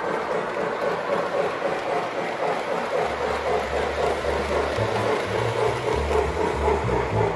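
Several O gauge model trains running at once on three-rail track, giving a steady rumble and rattle of wheels and motors. A deep, uneven low hum joins about three seconds in.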